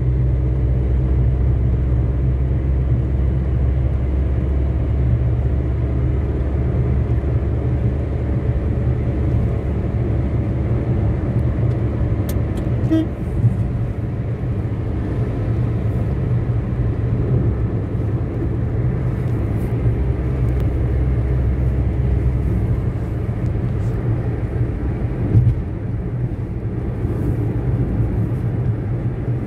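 Steady low road and engine rumble from inside a moving vehicle's cabin at highway speed, with a light knock about halfway through and another near the end.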